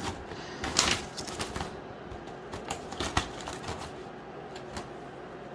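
Scattered light clicks and taps, with sharper ones about a second in and about three seconds in.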